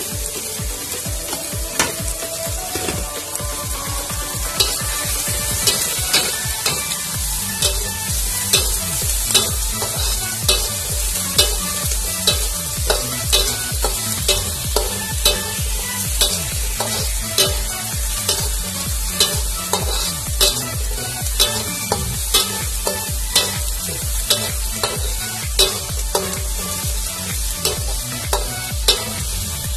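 Sweet corn and carrots with sliced shallots and chili sizzling in oil in an aluminium wok, with a metal spatula scraping and knocking against the pan about once a second as they are stir-fried.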